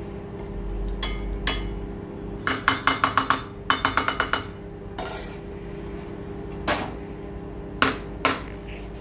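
Steel spoon scooping thick tomato chutney from a steel pan into a small steel jar, clinking and scraping against the metal. Two quick runs of rapid taps come a few seconds in as the spoon is knocked clean on the jar's rim, followed by a few single clinks.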